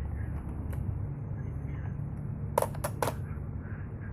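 Toy foam-bullet pistol mechanism clicking three times in quick succession, a little past halfway, over a steady low rumble.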